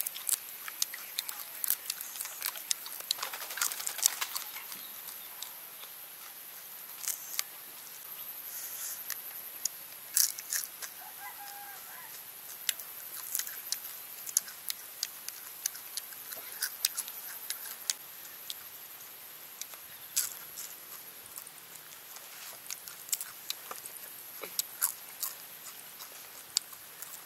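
Close-up crunching and chewing of crispy deep-fried grasshoppers, with irregular sharp crackles as the fried insects are bitten and their legs snapped off by hand.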